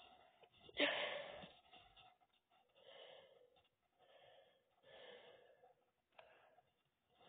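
Faint breathing close to the microphone, soft breaths about every one to two seconds, with one louder noisy exhale or sniff about a second in.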